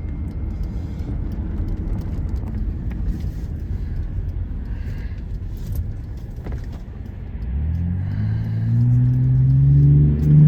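Diesel van driving, a steady low road and engine rumble, then the engine pulling harder from about three quarters of the way in, its note rising as the van accelerates, with a brief dip near the end like a gear change.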